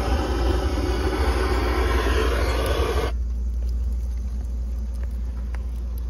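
Hand-held propane torch hissing as it lights paper in a wood furnace's firebox, shut off abruptly about three seconds in. Beneath it, the furnace's powered-up blower keeps up a steady low hum.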